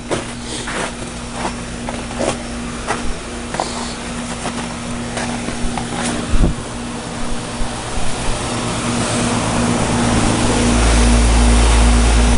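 2003 Bryant heat pump's outdoor unit running in heat mode: a steady compressor hum under the condenser fan, still running with ice built up on its coil rather than defrosting. Short sharp clicks come over the first half, and from about eight seconds in a low rumble grows louder.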